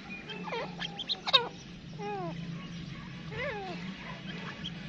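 Grey francolins giving a string of short calls, several falling in pitch, with one sharper, louder call about a second and a half in, over a steady low hum.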